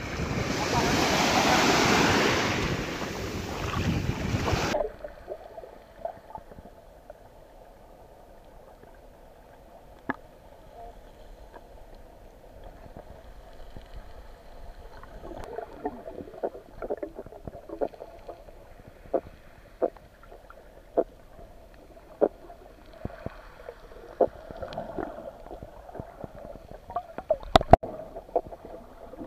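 Waves washing in the shallows with wind on the microphone, cut off abruptly about five seconds in as the microphone goes underwater. After that, a muffled underwater hush with scattered sharp clicks and taps, the loudest a heavy knock near the end.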